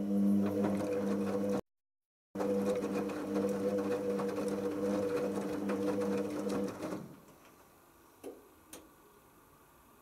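Hoover Optima OPH714D front-loading washing machine's drum motor humming as it turns a wet load of towels in a pre-wash tumble, then stopping about seven seconds in. The sound drops out for under a second near the start, and two soft knocks follow once the drum has stopped.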